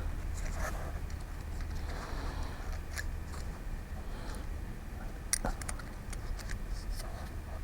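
Small clicks and taps of hand tools on the tiny metal parts inside an iPhone 5 as a small piece is worked loose, the sharpest clicks about three and five and a half seconds in, over a steady low hum.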